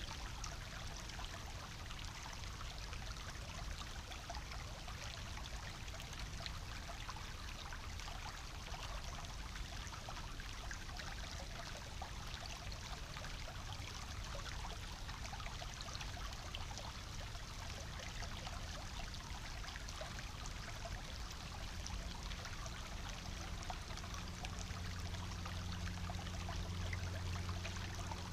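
Small shallow brook bubbling and trickling over stones in a steady, even rush. A low hum grows stronger over the last few seconds.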